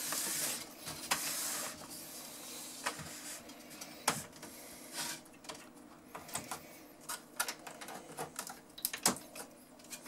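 Handling noise from a cassette deck being reassembled: a scraping rustle as the unit is turned on the mat for the first second or two, then scattered small clicks and knocks as wires and cable plugs are pushed back into connectors on the circuit board.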